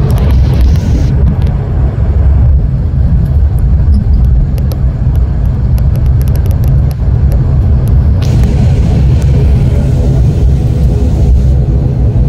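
Airliner cabin during the landing rollout: a loud, steady low rumble of the jet rolling down the runway, with light rattles. About eight seconds in, a hiss and steady engine tones join the rumble.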